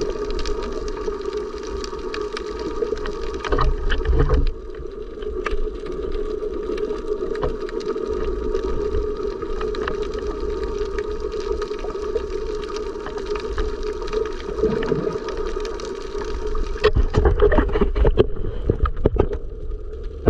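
Boat engine droning steadily, heard over sloshing water while snorkeling, with louder rough splashing about four seconds in and again near the end.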